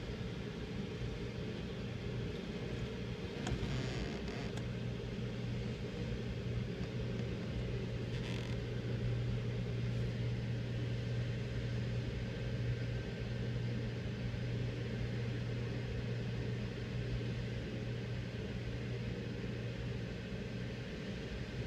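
Steady low hum of a car idling, heard from inside the cabin, over a steady rush of water falling from an irrigation flume outlet.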